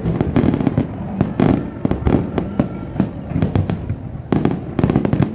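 Aerial fireworks display: a rapid, uneven barrage of shell bursts and bangs, thickest about four to five seconds in.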